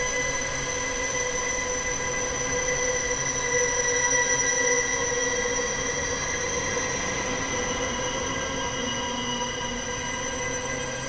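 Horror sound effect: a sustained eerie drone of several steady ringing tones sounding together, swelling a little about four seconds in.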